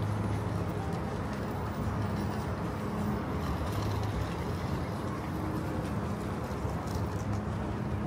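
Steady rumble of street traffic, with engine hum that swells and fades as vehicles pass.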